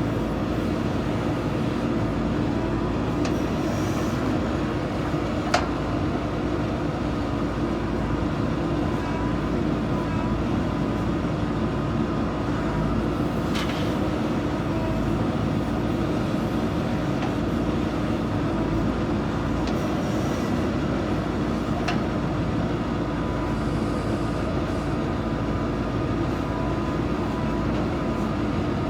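JCB 3DX backhoe loader's diesel engine running steadily, with a few short sharp knocks, the loudest about five and a half seconds in.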